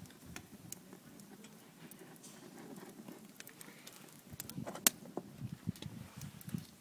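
Open wood fire of dry wood crackling, with scattered sharp pops; the loudest pop comes about five seconds in.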